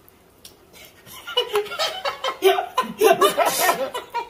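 Two men laughing together in short, choppy bursts, starting about a second in and dying away near the end.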